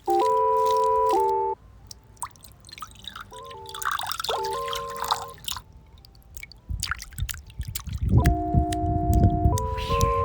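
Electronic synthesizer tones in short held chords that jump from pitch to pitch, set against dripping and trickling water. A low rumble joins the chords in the last couple of seconds.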